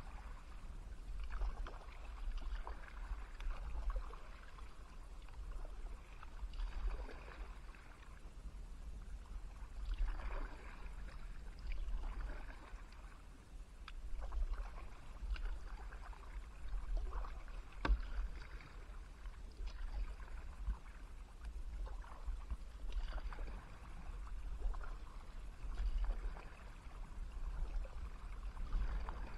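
Kayak paddle strokes in calm river water: the blades dip and pull through the water every two to three seconds, with a low rumble underneath and one sharp knock about two-thirds of the way through.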